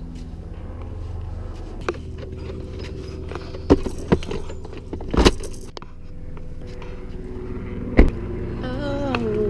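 Car interior with the engine running as a steady low hum, broken by a handful of sharp knocks and clicks and some jangling keys.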